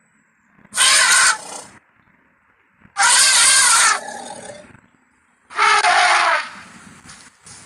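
Woolly mammoth call sound effect: three loud animal roar-like calls, each lasting about half a second to a second, separated by short silences.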